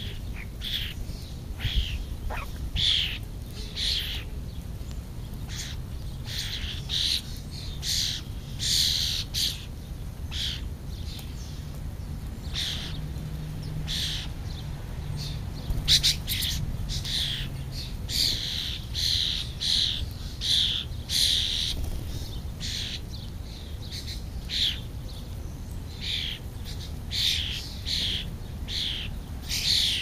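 Wild birds chirping: short, sharp, high calls every second or so, at times in quick runs of several, over a steady low background rumble.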